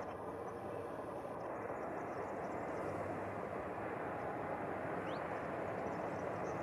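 Distant intermodal container freight train hauled by a Bombardier Traxx electric locomotive: a steady rumble of the wagons rolling on the rails, growing slightly louder. A short rising chirp about five seconds in.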